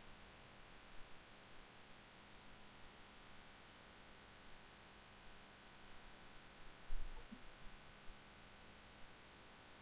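Faint steady hiss with a low electrical hum: the recording's background noise between narration. A brief low thump about seven seconds in.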